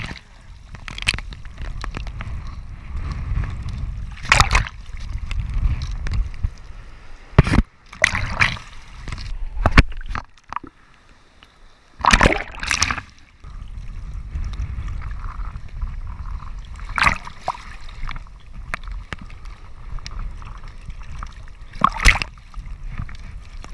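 Choppy sea waves slapping and splashing over a camera at water level, a steady low rumble of water on the microphone broken by sharp splashes every few seconds. About ten seconds in the sound goes muffled and quieter for a couple of seconds as the camera dips under the surface.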